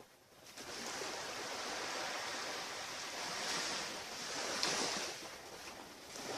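Waves washing onto a beach: a steady rushing surf that swells and eases.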